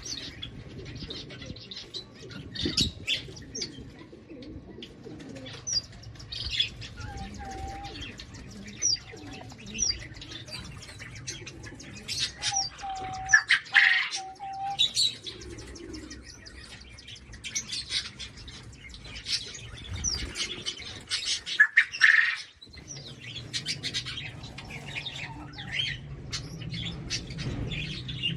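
A mixed flock of cage birds chirping and chattering continuously, with short whistled notes and two louder squawks, one about halfway through and another some eight seconds later.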